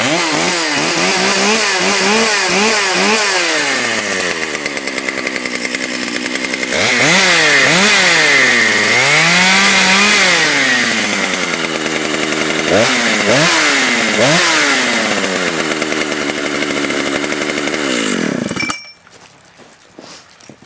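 Solo 675 two-stroke chainsaw, its engine cooled from sitting, running just after being started and blipped up and down repeatedly: a few quick revs, then two longer revs, then several sharp ones. It settles to an idle and cuts off suddenly near the end.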